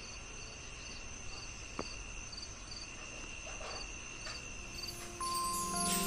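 Crickets chirping: a steady high trill with a short chirp repeating about twice a second. Background music comes in near the end.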